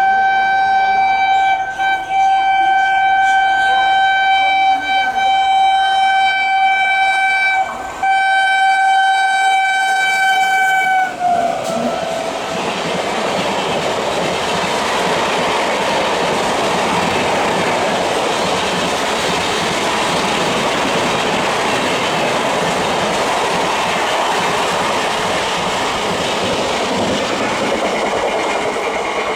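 WAP-7 electric locomotive's horn sounding one long tone, broken by three brief gaps, that drops in pitch about eleven seconds in as the locomotive passes. After that, a steady rush from the LHB coaches rolling past.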